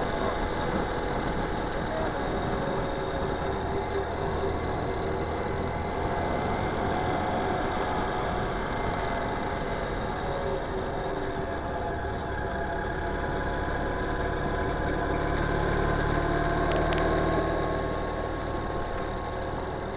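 Ural Retro sidecar motorcycle's flat-twin engine running steadily under way, with road and wind noise. It grows a little louder about three-quarters in, where two short clicks sound.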